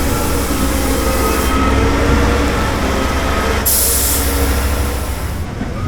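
Heavy diesel vehicle engine running steadily with a low rumble and a few faint whining tones. A loud hiss, like air being released, comes in a little past the middle and lasts nearly two seconds.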